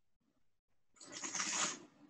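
A person slurping a mouthful of white wine, sucking air through it in the mouth the way a wine taster does ("like whistling backwards") to aerate it and open up its flavours. The slurp is airy and hissing and starts about a second in.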